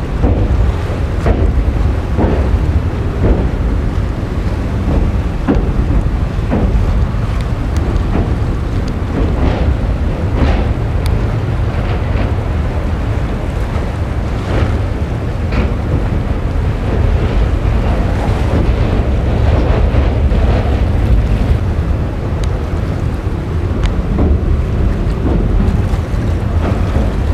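Wind rushing over a microphone held out of a moving passenger train, over the train's steady low rumble, with scattered short knocks and clanks from the running coaches.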